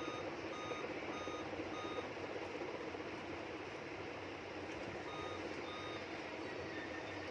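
Dell laptop's BIOS beeper sounding a start-up beep code: a run of short, evenly spaced beeps of one pitch, about two a second, then a pause of about three seconds and the beeps starting again. This is a repeating warning pattern that tells which hardware part has failed. A steady hiss runs underneath.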